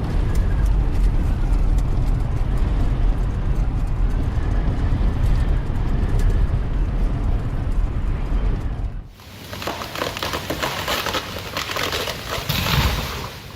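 Strong wind buffeting the microphone in a sandstorm, a heavy low rumble with gusts, which cuts off abruptly about nine seconds in. A different crackling hiss follows.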